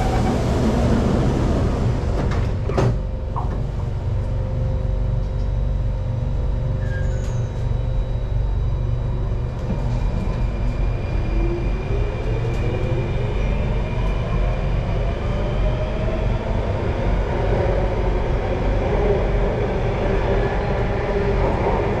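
Singapore MRT Circle Line train: its doors slide shut with a knock about three seconds in, over the carriage's steady low hum. About halfway through, the train pulls away and the traction motors whine, rising in pitch as it gathers speed.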